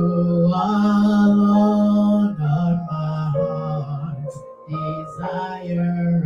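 A single voice singing a slow worship song, holding long notes, over a soft instrumental accompaniment.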